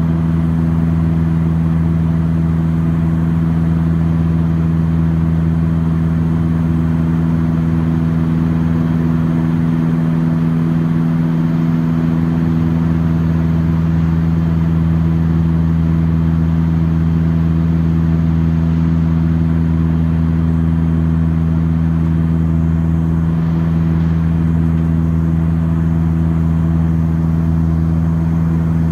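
Saab 340 cabin noise in flight: the turboprop engines and propellers give a loud, steady drone with a strong low hum.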